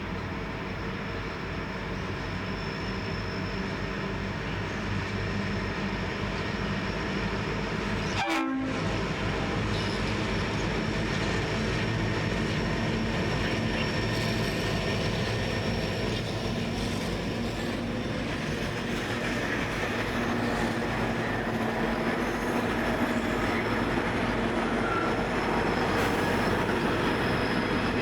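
BL-class diesel locomotives hauling a loaded grain train, their engines running under power as the train gets under way, growing steadily louder. A brief dropout in the sound about eight seconds in.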